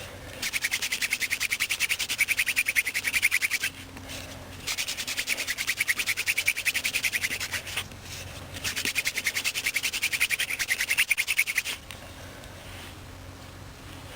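Hand-drill fire-making: a cattail spindle spun back and forth between the palms, grinding in the notch of a willow hearth board with a fast, even rubbing. It comes in three long bouts with brief breaks about four and eight seconds in, and stops about twelve seconds in. The drilling is building up an ember in the notch.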